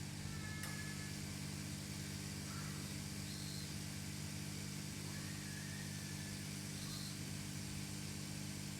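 Steady low hum over a faint even hiss, with a few faint short chirps.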